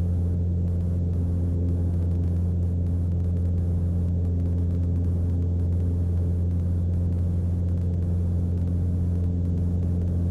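Steady drone of a Mooney M20C's four-cylinder Lycoming engine and propeller, heard inside the cabin in level cruise: an even, low hum that does not change.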